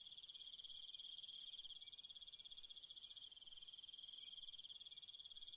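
Faint, steady high-pitched insect trill, cricket-like, pulsing rapidly without a break.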